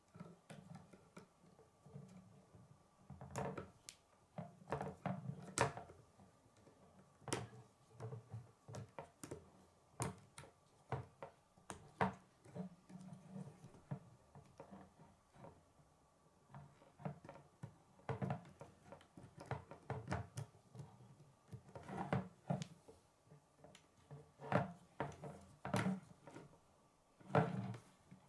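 K'nex plastic rods and connectors clicking and snapping together as a model is built by hand: irregular sharp clicks, several a second in bursts, with short pauses between.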